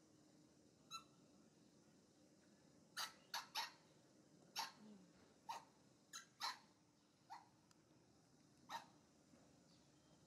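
Baby macaque giving short, sharp, high-pitched squeaking cries, about ten of them, with a quick run of three about three seconds in.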